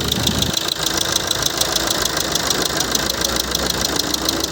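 Maruti Suzuki Ertiga Smart Hybrid engine idling with a fast, even knock, which the mechanic presents as engine knocking.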